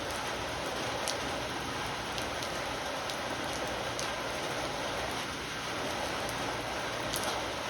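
Heavy rain falling steadily, with a few sharp ticks of drops striking close by.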